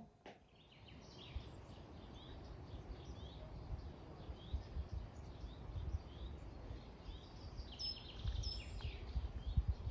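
Small birds chirping in rapid short chirps, over a gusty low rumble of wind on the microphone that grows louder toward the end.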